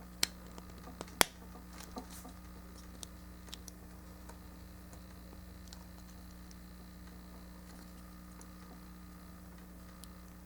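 Hard plastic model-kit parts being handled and pressed together: two sharp clicks, about a quarter second and just over a second in, then a few light ticks, over a steady low hum.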